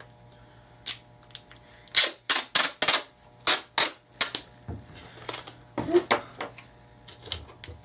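Clear packing tape pulled off its roll in a quick series of about ten short, sharp rips, followed by a few lighter clicks and knocks as the roll is put down on the bench.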